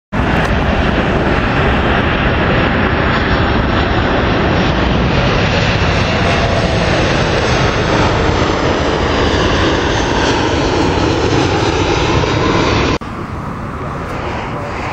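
Boeing 737 airliner's jet engines on approach, a loud steady rush with whining tones that slide lower in pitch as it passes. About thirteen seconds in, the sound cuts abruptly to a quieter steady rush.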